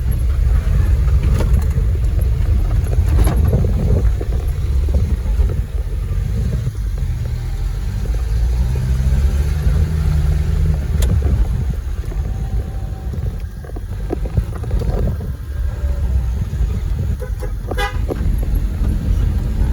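Car engine and road rumble heard from inside the moving vehicle, running steadily with small knocks and rattles as it drives along a village road.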